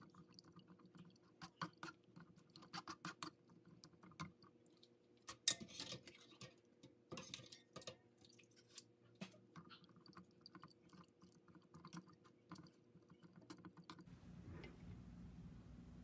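Faint, irregular clicks and crackles of hands working with small hard objects in a kitchen, over a faint steady hum. Near the end they give way to a steady low hiss.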